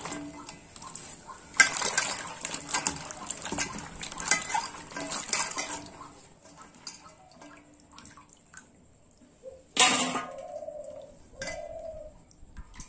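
Okra pods being swished and rubbed by hand in water in a steel bowl: splashing, with the pods and hands knocking against the metal, dying down after about six seconds. A sharp knock about ten seconds in.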